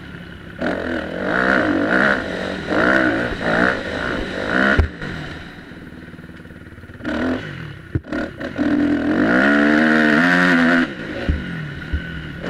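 Motocross bike engine heard from on board, revving up and down several times, then eased off for a couple of seconds. It is then held on the throttle in one long rising rev that shuts off abruptly, with a few sharp knocks along the way.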